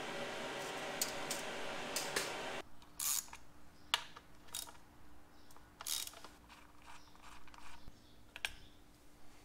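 Light metal clicks and clinks from hand work on a transmission's shift linkage and bracket bolts, scattered and irregular. A steady background hiss stops abruptly about two and a half seconds in.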